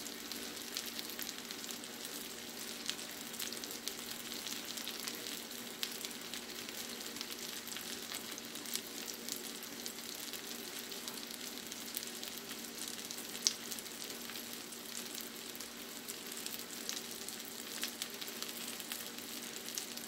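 Halibut steaks and cherry tomatoes frying in garlic butter in a pan: a steady sizzle with scattered small crackles and one sharper pop about two-thirds of the way through.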